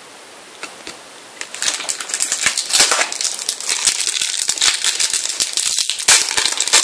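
Foil trading-card pack wrapper crinkling and rustling as it is handled, dense and irregular, starting about a second and a half in after a couple of light clicks.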